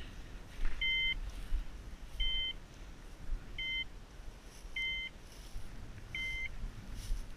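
Hunting dog's beeper collar sounding short, even two-tone electronic beeps, one about every second and a half: the point-mode beep that a beeper collar gives when the dog stands still.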